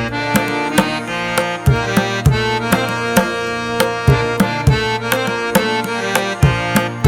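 Background music with a steady drum beat under a sustained, held melody.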